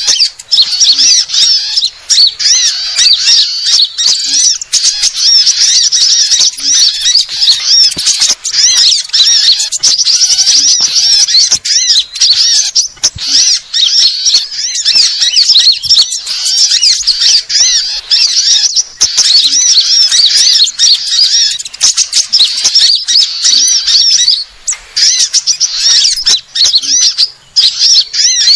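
A dense, noisy chorus of many small songbirds chirping, twittering and trilling over one another without a break. It is a combined lure recording meant to draw small birds in for trapping.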